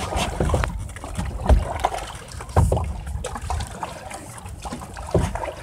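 Canoe being paddled on a lake: water noise with several low, dull thumps one to a few seconds apart.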